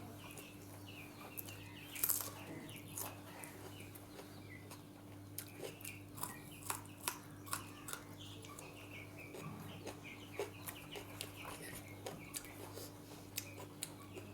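Sharp clicks and smacks of someone eating, several a second in stretches, with faint, repeated clucking calls of fowl in the background over a steady low hum.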